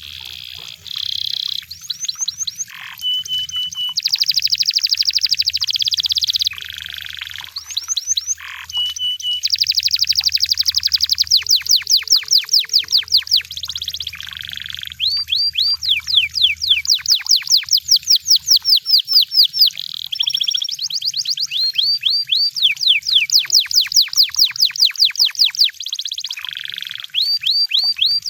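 Canary singing a long, continuous song of fast trills: runs of quick, repeated downward-sweeping notes several a second, broken by short buzzy phrases and a couple of brief held whistled notes.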